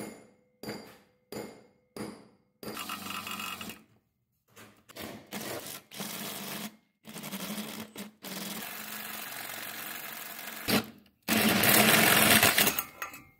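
Four sharp knocks about two-thirds of a second apart, then a small power tool running in several bursts of one to a few seconds, stopping and starting abruptly, the loudest near the end.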